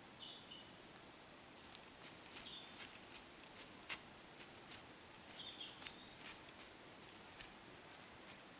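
A deer's hooves stepping through dry fallen leaves and twigs: an irregular scatter of faint crackles and rustles, the sharpest about four seconds in. Three short high chirps sound among them.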